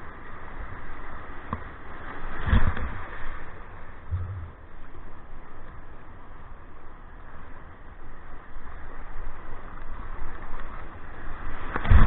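Whitewater surf washing around a surf kayak as it is paddled out through broken waves. A heavier thump and splash comes about two and a half seconds in, and another at the end as a breaking wave hits the bow.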